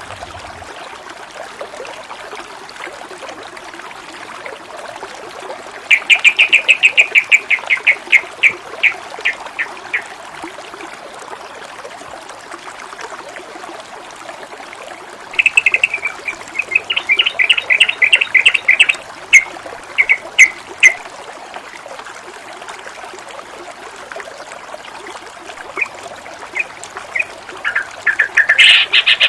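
Water flowing and trickling steadily, with a songbird breaking in three times with fast runs of repeated chattering notes: about six seconds in for some four seconds, again from about fifteen seconds for some five seconds, and once more near the end.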